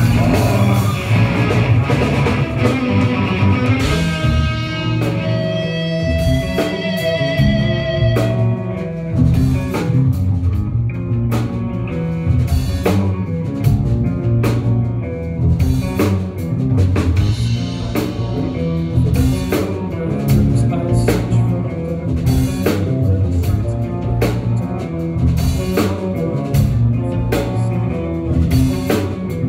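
Live rock band playing, with electric guitars over a drum kit. Guitars hold long notes, one wavering with vibrato, and about nine seconds in the drums take up a steady beat.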